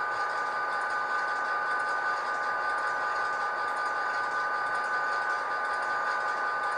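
ESU LokSound decoder's diesel engine sound, imitating an SD45's 20-cylinder EMD prime mover, running steadily through an HO-scale model locomotive's small speaker. A few fixed high tones ride over it throughout.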